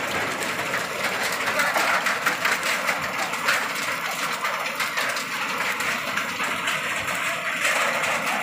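Hail and heavy rain coming down steadily onto the ground and surrounding surfaces: a dense hiss full of sharp ticks from the hailstones striking.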